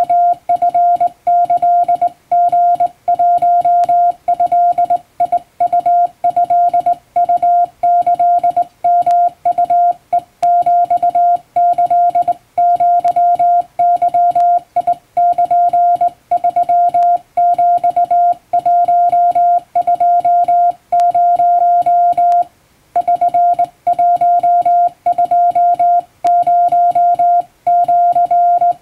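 Morse code sidetone: a single steady beep keyed on and off in dots and dashes, sent by hand on a straight key in Japanese wabun code, with one longer pause about three-quarters of the way through.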